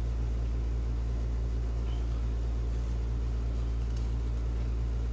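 Steady low hum, the loudest thing throughout, under faint scrapes of a CRKT Chanceinhell machete blade shaving feather-stick curls off a wooden stick.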